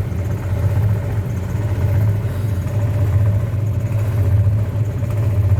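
Rooftop HVAC unit running, giving a steady, loud low machine hum with a faint higher tone over it.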